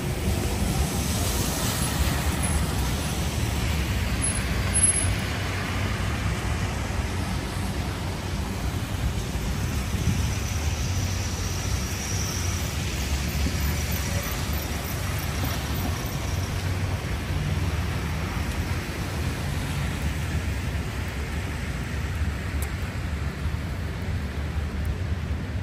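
City street traffic on wet pavement: a steady low rumble of engines with the hiss of tyres on the wet road, under the patter of rain.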